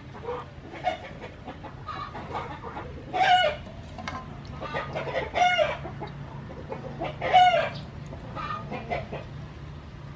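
Farm birds calling: three loud, short calls about two seconds apart, with softer calls in between.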